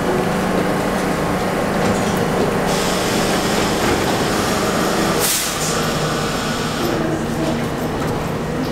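New York City Subway train standing at a platform with a steady hum as its doors close; about five seconds in, a short sharp hiss of air as the brakes release, and then the hum drops in pitch and faint motor tones begin as the train starts to pull out.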